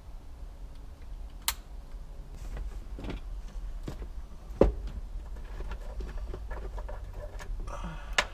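Scattered sharp plastic clicks and knocks from handling wiring-harness connectors under a dashboard, the loudest about halfway through, over a steady low hum.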